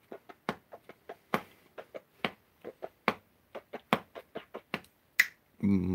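A series of short, sharp clicks, irregularly spaced at about three a second.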